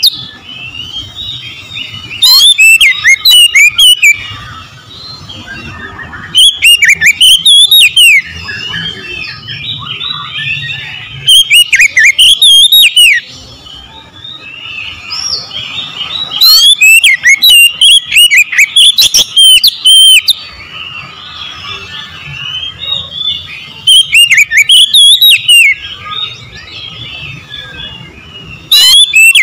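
Oriental magpie-robin (kacer) singing in full voice. Loud song phrases of about two seconds, each a rapid run of repeated high, gliding notes, come every four to five seconds, with softer twittering in the gaps.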